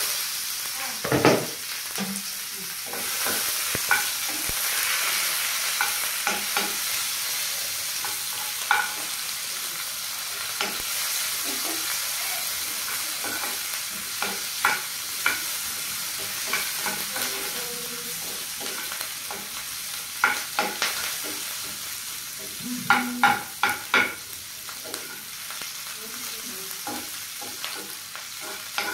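Sliced onions frying in hot oil in a black pan, sizzling steadily, while a long metal ladle stirs them, scraping and knocking against the pan with scattered sharp clinks, a loud one about a second in and a run of them near the end.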